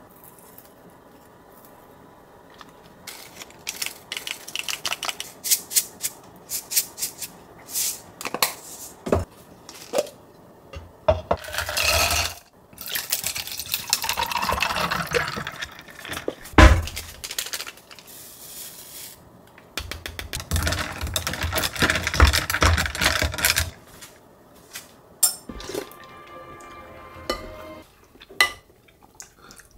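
Kitchen table sounds: light taps and clicks of dishes and utensils, then water poured from a plastic bottle into a glass of ice, with a dull thud. A second long pour follows, then a few small clinks.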